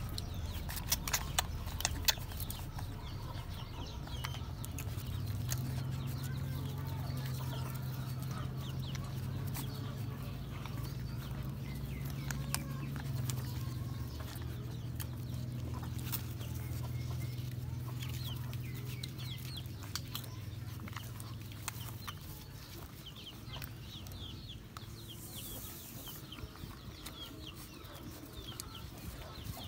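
Chickens clucking, with short high squeaks and a few sharp clicks, over a low steady hum that fades out about two-thirds of the way through.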